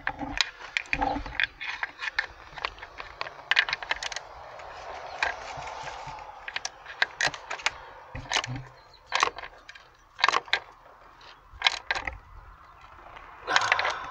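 Ratchet wrench clicking in short, irregular runs as the new master cylinder's mounting nuts are snugged down, with metallic clicks of hand tools.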